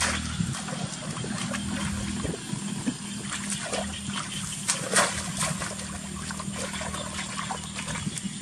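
Water splashing and trickling in irregular strokes, the loudest splash about five seconds in, over a steady low hum.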